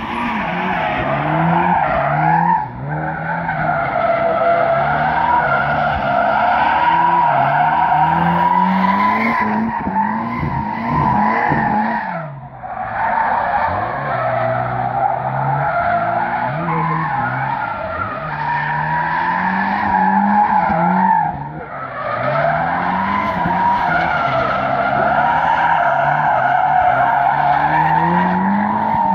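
Volvo 244 Turbo's turbocharged four-cylinder engine revving up and down under load while drifting, with its rear tyres squealing and scrubbing. The squeal eases off briefly three times as the car changes direction.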